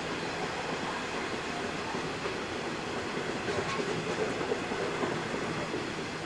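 Grain hopper wagons rolling past on steel wheels over the rails. A steady rolling noise, with a few sharper knocks about halfway through.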